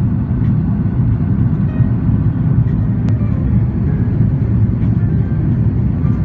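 Steady low rumble of Airbus A330-300 cabin noise, engines and airflow, heard from a passenger seat on final approach.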